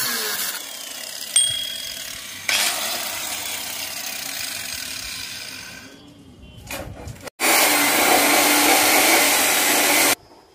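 Angle grinder grinding a weld on a steel pipe handrail: it runs in two spells, the second cutting in sharply about two and a half seconds in and fading over the next few seconds. About seven seconds in, after a brief dropout, a loud steady hiss sounds for about three seconds and stops abruptly near the end.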